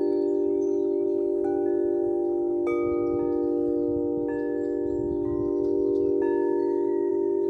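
Wind chimes ringing: several long, overlapping tones, with new strikes added at irregular moments while the earlier ones fade slowly.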